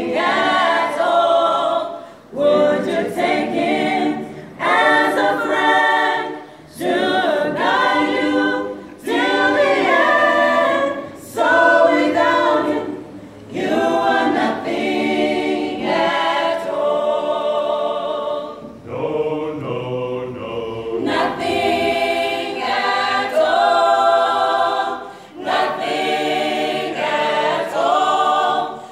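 Mixed choir of young women and men singing a gospel song a cappella in parts, in short phrases with brief pauses for breath between them.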